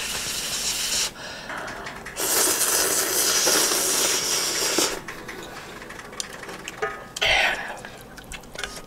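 A person slurping instant ramen noodles off chopsticks: a short slurp at the start, then a loud, long slurp of nearly three seconds from about two seconds in. A brief shorter slurp or sniff follows near the end.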